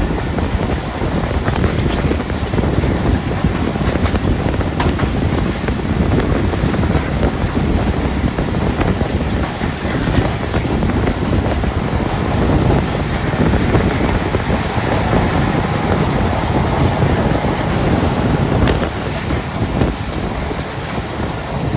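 Passenger train running at speed, heard from an open coach window: a steady rumble of wheels on the rails with wind rushing past the microphone.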